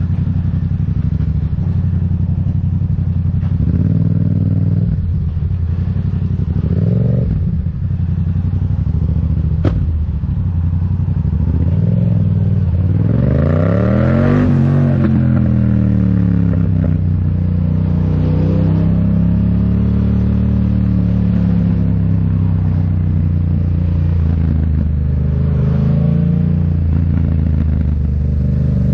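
Yamaha MT-07's 689 cc parallel-twin engine running through a Mivv Delta Race full exhaust while being ridden. It holds fairly steady revs, revs up sharply about twelve seconds in, then eases back off and carries on at a steady, gently varying speed.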